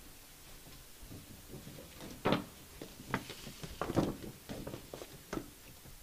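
A ball being drawn by hand from a red draw bag at a lectern: a string of knocks and rustles, the loudest about two and four seconds in.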